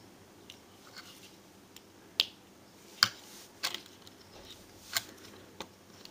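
Plastic Transformers Waspinator action figure being handled and set on a table: a handful of irregular sharp clicks and taps of plastic.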